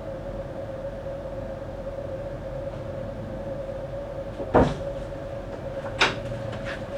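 Steady hum with two sharp knocks, one about four and a half seconds in and another about a second and a half later.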